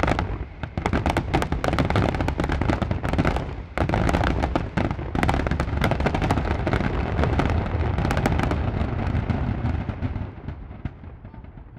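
Fireworks finale: a dense barrage of aerial shell bursts, many rapid overlapping bangs, thinning out and fading near the end.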